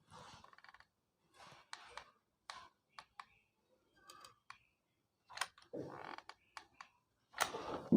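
Faint, irregular small clicks and soft rustling of thread and canvas being handled as lengths of thread are pressed onto glued canvas.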